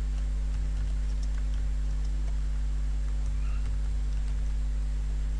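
Steady low electrical hum on the recording, with faint, scattered clicks of typing on a computer keyboard.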